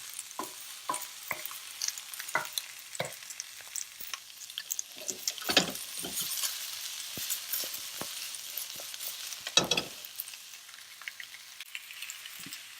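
Peppers and onions sizzling in hot oil in a wok while being stirred, a steady frying hiss with the spoon scraping and knocking against the metal in scattered strokes, two of them clearly louder, around the middle and about ten seconds in.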